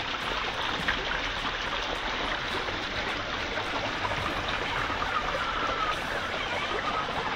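Axial SCX24 Gladiator RC crawler's small brushed electric motor and gears whining, the pitch wavering up and down with the throttle in the second half, over a steady rushing hiss.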